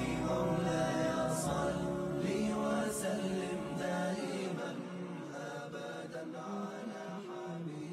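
Islamic devotional chant (nasheed) sung by voices holding long, slowly gliding notes, with no spoken words.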